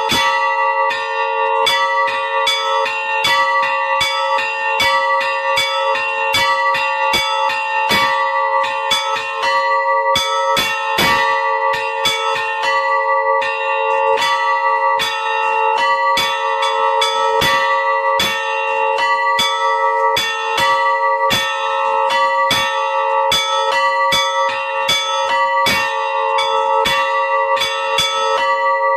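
Three old bells rung together in a quick, steady run of strokes, about two to three a second. Each stroke rings on under the next, so the tones overlap without a break.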